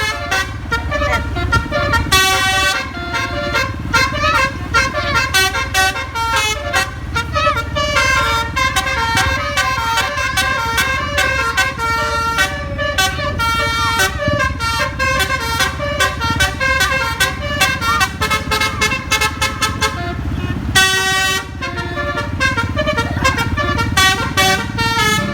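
A bus's basuri telolet multi-tone air horn playing a long, fast melody of stepping horn notes over the low rumble of the engine and road, with a short break near the end.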